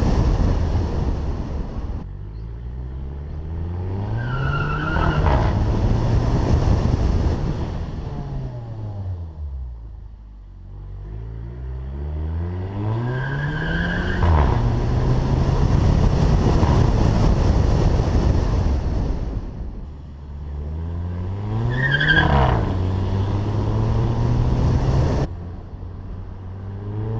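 Volkswagen Fusca with a swapped TSI engine and DSG dual-clutch gearbox, accelerating through the gears. The revs climb and drop at each upshift with a short crackling exhaust 'fart', three times, and the revs fall away between pulls.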